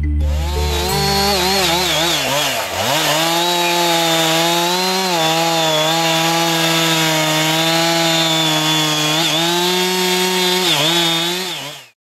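Two-stroke chainsaw held at high revs while cutting into a large charred tree trunk. Its pitch sags briefly several times as the chain bites into the wood, then the sound cuts off abruptly near the end.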